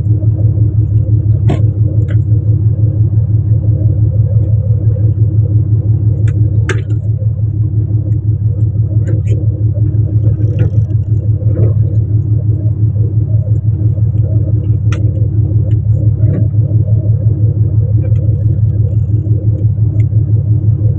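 Fishing boat's engine running steadily, a loud low rumble with a fast even throb, with a few sharp knocks from work on the deck over it.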